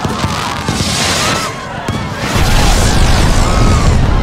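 Fireworks display going off: a hissing crackle, with a heavy low rumble of booms that gets louder about halfway through.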